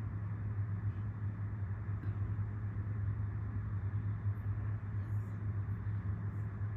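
Steady low mechanical hum with a rumbling background and no distinct events.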